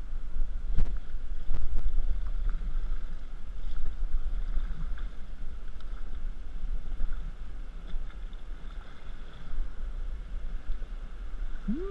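Water lapping and slapping against the tubes of an inflatable raft drifting on flat river water, with a steady low wind rumble on the microphone.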